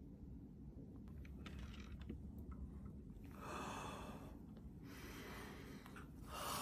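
Faint sounds of a person: a few light clicks, then a long breath or sigh about three and a half seconds in. Music starts to come in at the very end.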